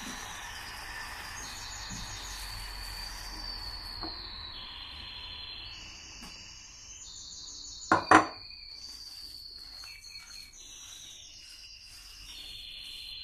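A hand mixes and squeezes soft cake dough in a stainless steel bowl, with faint scraping against the metal. A steady high-pitched chirring runs underneath. About eight seconds in come two sharp knocks, close together.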